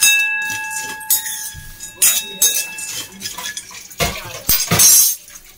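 A steel spoon stirring and striking roasted peanuts in a stainless steel bowl. The bowl rings with a clear metallic tone after strikes at the start and about two seconds in, and the peanuts rattle against the metal. A louder scraping clatter follows about four seconds in.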